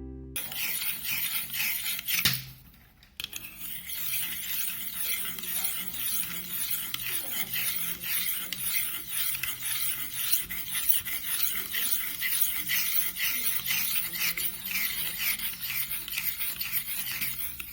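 Knife blade drawn over and over through a CRKT Slide Sharp sharpener, a quick run of rasping, scraping strokes with a short break about two seconds in.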